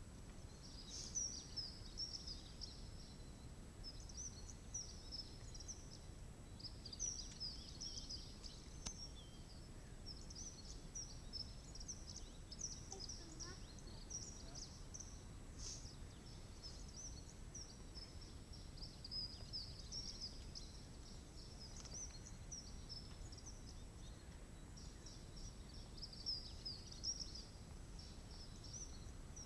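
Small birds chirping irregularly over a low, steady outdoor rumble.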